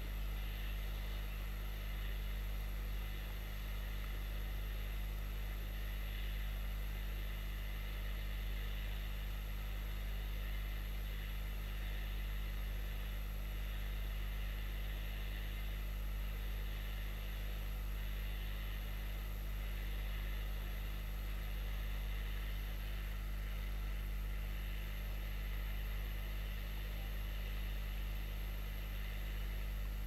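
Hot air rework station blowing steadily onto a board connector to melt its solder for removal, with a low steady hum beneath.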